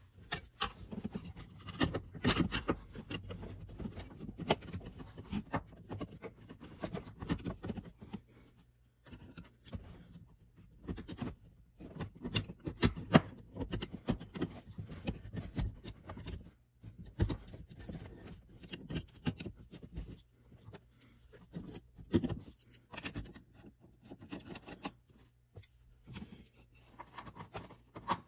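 Handling noises as a steel dash bracket carrying a riveted plate and module is worked back into place under a car's dashboard: irregular knocks and clicks of metal against metal and plastic, with rubbing and scraping between them.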